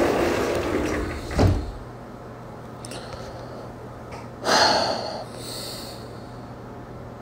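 Breath sounds close to a phone's microphone: a long noisy exhale fading over the first second, a soft thump about a second and a half in, and a short sharp breath at about four and a half seconds.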